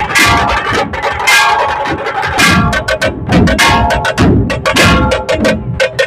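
A dhol-tasha troupe beating large barrel-shaped dhol drums with sticks, playing a loud, fast, driving rhythm, with a metallic ringing over the drum beats.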